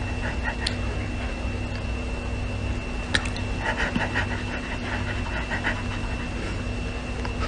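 A dog panting in runs of quick short breaths, about four a second, over a steady faint hum.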